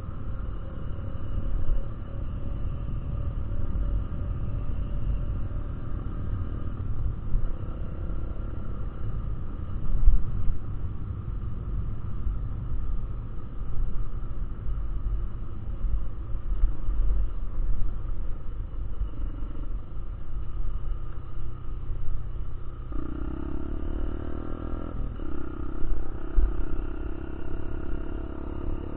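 Motorcycle engine heard from an onboard first-person camera, under a heavy low rumble; the engine note comes back stronger about three-quarters of the way through.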